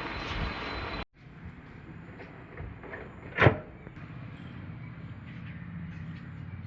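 High-pressure washer spray hissing, cut off abruptly about a second in. Then a low steady hum, with one sharp loud knock about three and a half seconds in.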